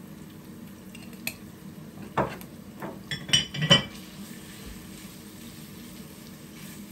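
A wooden spatula scraping and knocking against a stone-coated non-stick frying pan as minced meat, onions and peppers are stirred, with a quick run of knocks about three to four seconds in. A faint sizzle comes from the mince browning in the pan.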